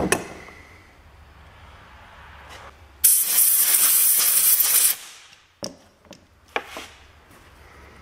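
A loud, steady hiss lasting about two seconds, starting about three seconds in and cutting off quickly, then two short sharp clicks near the end.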